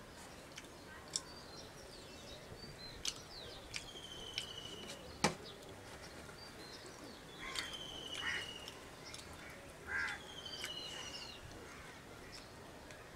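Crows cawing a few times in the second half, while another bird repeats a short falling trill three times, a few seconds apart. Several sharp clicks are heard, the loudest about five seconds in.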